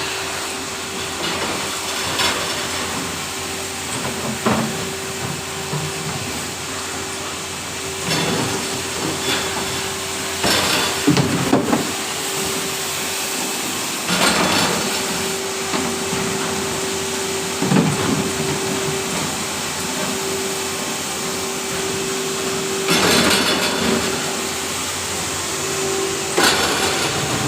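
Tray washing machine running with a steady machine hum, and short clattering knocks every few seconds.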